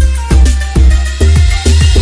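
Background music with a steady electronic dance beat and a heavy, deep bass kick.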